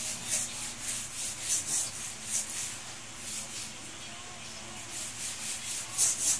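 Hand scrubbing of a wet, soapy floor with steel wool and a rag: repeated scratchy back-and-forth strokes, about two a second, easing off in the middle and picking up again near the end.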